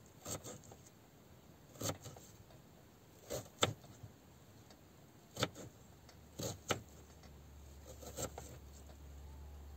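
Knife chopping an onion on a small wooden cutting board: about ten irregular sharp knocks of the blade on the wood, some in quick pairs.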